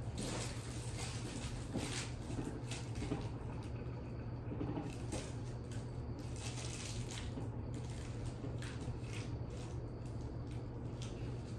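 Irregular rustling and crinkling of plastic treat bags and wrapped candy being handled and sorted, over a steady low electrical hum.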